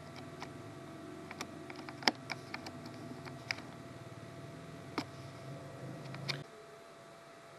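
Scattered light clicks over a faint low hum, which cuts off about six and a half seconds in; the loudest click comes about two seconds in.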